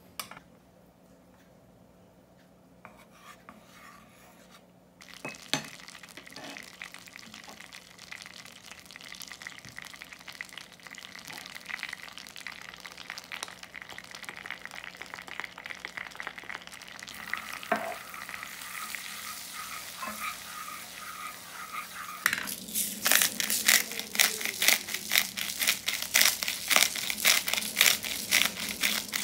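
Butter sizzling and frying in a small nonstick saucepan while a wooden spatula stirs it. The sizzle starts about five seconds in and slowly grows. In the last quarter it turns to loud, dense crackling and bubbling as the mixture in the pan foams up.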